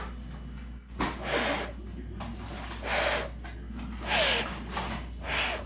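Several short puffs of breath blown onto freshly painted fingernails to dry the polish.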